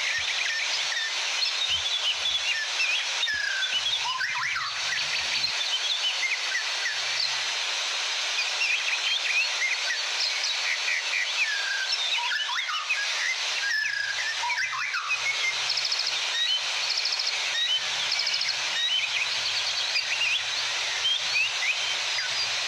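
Several small birds singing, with many short, overlapping chirps and whistled notes. Behind them runs a steady hiss of falling water from a small waterfall. In the second half one bird gives a few quick repeated trills.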